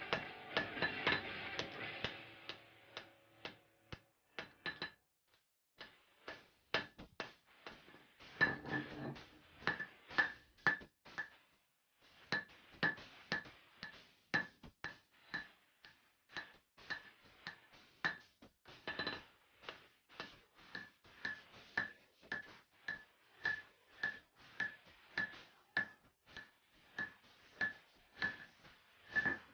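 Hammer blows on red-hot axe steel over an anvil, each with a short bright ring, at about two a second with two brief pauses. Background music fades out in the first few seconds.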